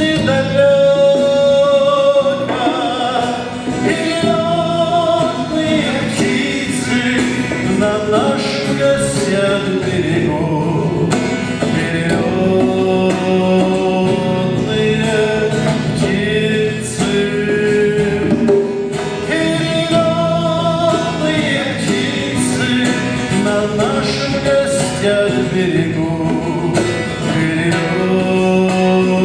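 A man singing a song to guitar accompaniment, with long held notes.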